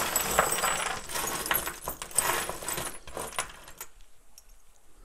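Loose metal screws, bolts, nuts and washers clattering and jingling as hands rummage through a pile of hardware on a workbench. The rummaging stops about four seconds in, leaving a few faint clicks.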